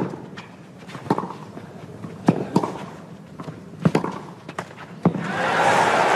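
Tennis ball struck back and forth by rackets in a baseline rally on clay, a sharp pock roughly every second. About five seconds in, the crowd breaks into cheering and applause as the point ends.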